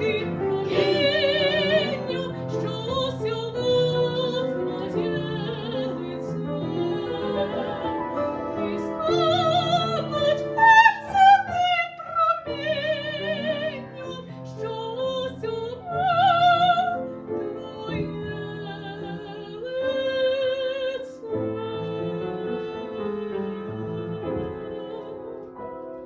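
A woman singing in a classical, operatic style with wide vibrato, accompanied by piano. The sound grows quieter near the end.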